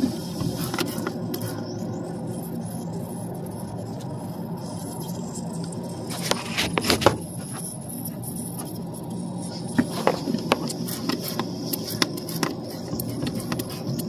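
Pressurized gas hissing out of a leak in an evaporator coil tube at about 50–60 PSI standing pressure, the leak-detection bubble solution on it crackling. A few sharp clicks and scrapes come in bunches about halfway through and again a little later.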